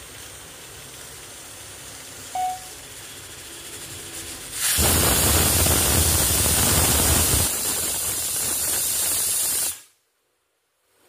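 Aluminium pressure cooker venting: the weighted whistle lifts and steam blows out with a loud hiss for about five seconds, the sign that the cooker has come up to pressure. A fainter steady hiss comes before it, and the sound cuts off abruptly near the end.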